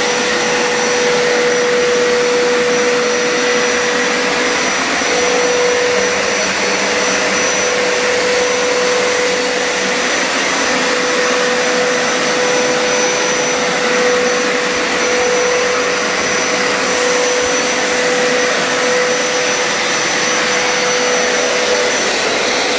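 Hoover Power Scrub Deluxe carpet cleaner running on a hard floor with its hard-floor adapter fitted: the suction motor and spin-scrub brushes give a loud, steady rushing sound with a high whine. The whine drops out shortly before the end while the rush carries on.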